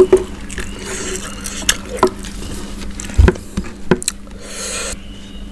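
Close-miked eating of crispy fried chicken: sharp crunchy bites and wet chewing clicks, with a heavier thump a little past the middle.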